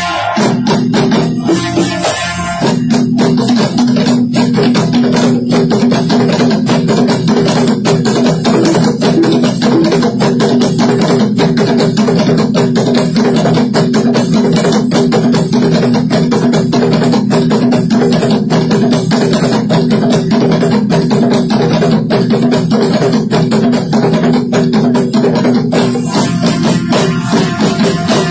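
Moroccan Aissawa troupe music: frame drums (bendir) and other hand percussion beaten in a fast, dense rhythm over a steady held drone.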